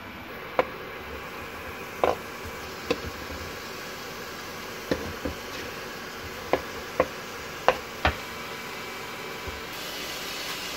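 A knife and a wooden cutting board knocking against the rim of a nonstick pot about ten times, at irregular intervals, as cubes of raw beef are scraped into it. Under the knocks is a steady hiss of the meat starting to sizzle in the hot pot, brightening a little near the end.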